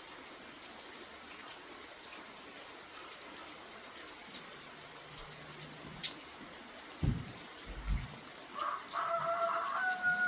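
Steady light rain, with two low thumps about seven and eight seconds in. A bird calls near the end in held, steady notes.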